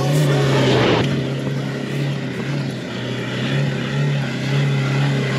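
A vehicle engine running steadily, a low drone with a hiss of noise above it and small rises and falls in level.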